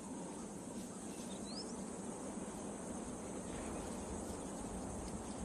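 Savanna ambience: a steady high-pitched insect drone over a low hiss, with one short rising high chirp about one and a half seconds in.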